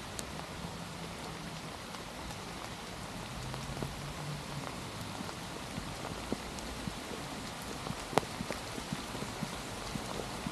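Steady rain falling, a continuous even hiss with many sharp close ticks of drops scattered through it, one louder tick about eight seconds in.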